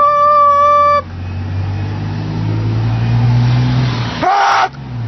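Car horn sounding steadily and stopping about a second in, then the car's engine running and slowly speeding up. A brief loud rising tone comes near the end.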